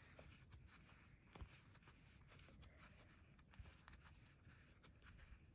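Near silence with faint, scattered soft ticks and rustling of a metal crochet hook pulling yarn through single crochet stitches.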